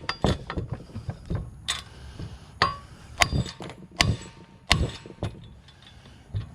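Small go-kart engine being beaten with a hammer to break its stuck cylinder head loose: a dozen or so sharp metallic blows, irregularly spaced about half a second apart, some ringing briefly, stopping shortly before the end.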